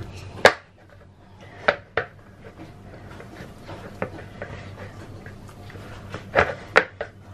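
Hands kneading soft milk-powder kalojam dough on a plate, with about six sharp knocks and taps of the plate on the wooden board, two of them close together near the end. A low steady hum runs underneath.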